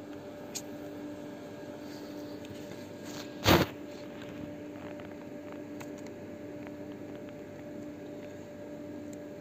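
A steady mechanical hum, with one short, loud thump about three and a half seconds in.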